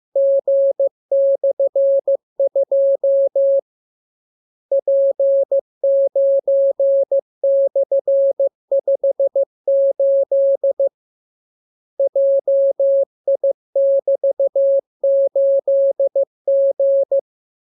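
Morse code (CW) tone: a single steady mid-pitched beep keyed in dots and dashes, sending characters in groups. Two pauses of about a second break the sending, about four seconds in and about eleven seconds in.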